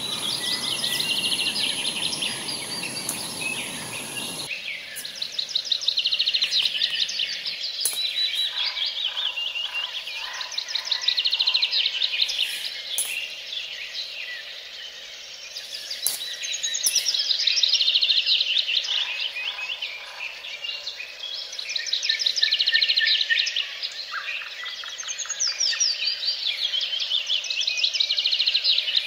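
A songbird singing long, rapid trilling phrases that recur every few seconds, some sliding downward. Under the first four seconds or so runs a steady hiss from a camping canister gas stove burner, which cuts off abruptly.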